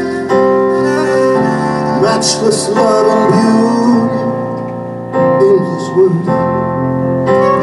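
Live worship music: a slow song led on keyboard, with long sustained chords that change every second or two and a wavering melody line over them.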